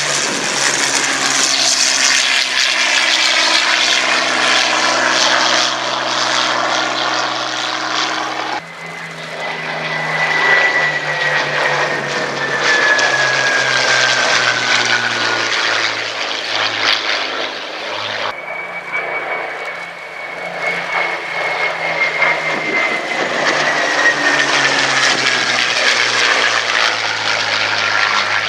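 Rolls-Royce Merlin III piston engine of a Hawker Sea Hurricane fighter flying past, its engine note falling in pitch as it goes by. The sound changes abruptly twice, giving three separate passes.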